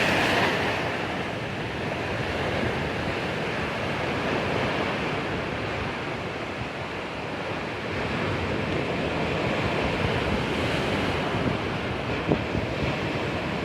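Sea waves breaking and washing onto the shore. A wave is loudest at the start and fades over the first second or two, and the surf swells again about two-thirds of the way through.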